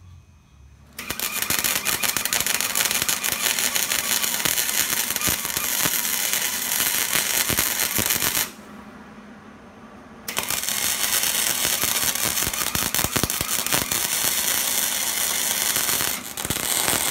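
Hobart 140 wire welder arc welding steel, a steady fast crackle. It runs as two beads of about seven seconds each, with a pause of about two seconds between them.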